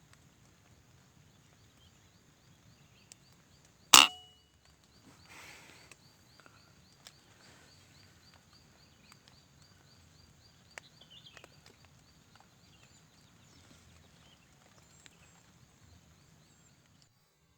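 A single shot from a suppressed .177 PCP air rifle, a locally built FX Crown, about four seconds in: a sharp crack with a brief metallic ring. A short rustling noise follows about a second and a half later.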